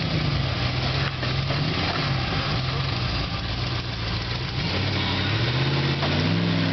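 Rock buggy's engine running at low revs as it crawls over boulders, picking up a little in revs about five seconds in.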